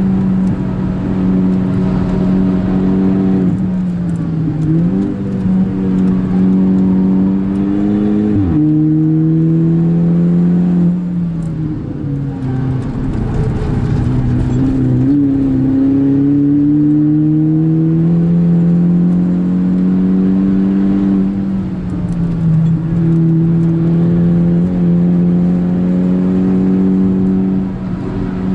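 Volkswagen Golf Mk5 GTI's turbocharged 2.0-litre four-cylinder engine pulling hard at high revs, heard from inside the cabin. Its note holds high, dips and recovers a few seconds in, drops sharply at a gear change about eight seconds in, then climbs slowly as the car accelerates before levelling off.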